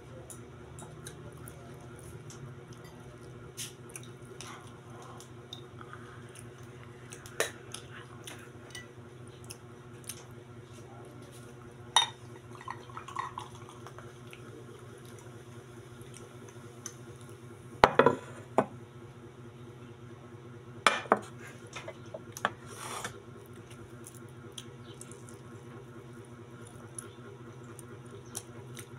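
A drinking glass and tableware clinking and knocking on a table at irregular moments, the loudest a short cluster of knocks about two-thirds of the way in, over a steady low hum.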